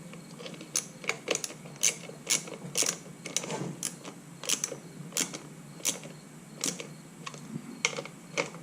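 Socket ratchet with a 10 mm socket on a short extension clicking as a bolt is run down and tightened. The clicks are sharp and uneven, about two a second.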